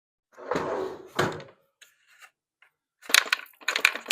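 Hands working a new rubber fuel line into a string trimmer's plastic fuel tank: two brief rubbing scrapes, then a fast run of clicks and rattles about three seconds in.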